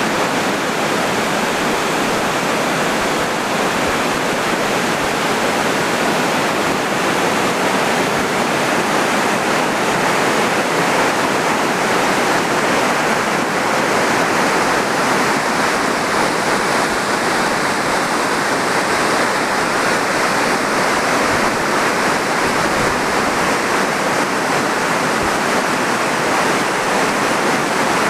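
Steady rushing of river water pouring over a lock and dam.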